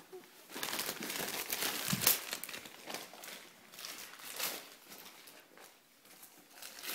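Christmas wrapping paper rustling and crinkling in irregular bursts as wrapped presents are handled.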